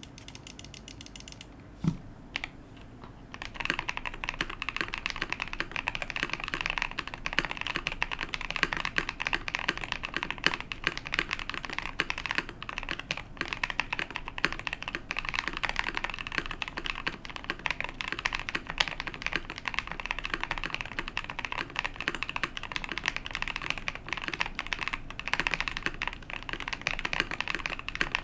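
Fast, continuous typing on a custom KBD67 Lite mechanical keyboard with lubed Tecsee Purple Panda tactile switches, a polycarbonate plate and Akko PBT double-shot keycaps. A single knock comes about two seconds in, and the steady typing starts shortly after.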